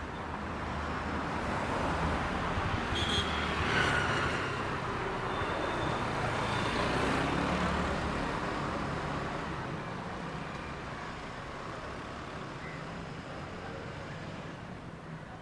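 Road traffic passing close by: a vehicle's noise swells for a few seconds and then fades.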